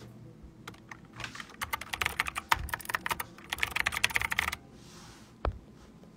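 Rapid typing on a computer keyboard for about three and a half seconds, then a single separate key or click near the end.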